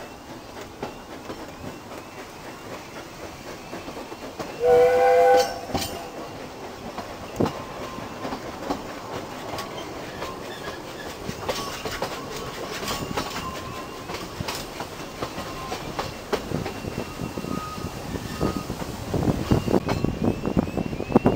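A steam locomotive's whistle sounds once, a short single-pitched blast about five seconds in, given at a whistle board. Under and after it runs the steady clickety-clack and rumble of the narrow-gauge carriages' wheels on the rails, heard from a carriage window and growing louder near the end.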